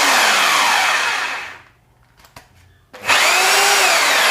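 Electric rotary hammer drill (850 W CHESTON) run free with no load, whining at full speed, then winding down with a falling pitch when the trigger is released about a second and a half in. A short click in the pause, then the drill is triggered again and spins straight back up to full speed near the end, demonstrating its reverse and forward rotation.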